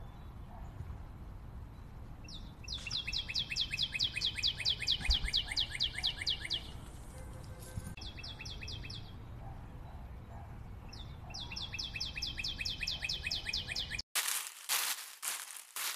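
A bird singing in fast trills of repeated high notes, about seven notes a second, in three runs over a low outdoor rumble. About fourteen seconds in, the sound cuts abruptly to a run of crackling bursts.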